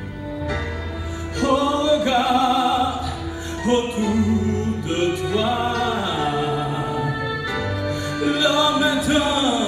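A man singing a gospel song into a microphone, holding and sliding between long notes, over steady instrumental accompaniment with a low bass.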